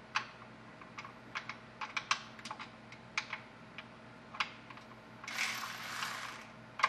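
Irregular sharp metallic clicks and taps from a socket and tools working the transmission pan bolts. Near the end a cordless electric ratchet whirs for about a second as it spins a pan bolt, followed by one sharp click.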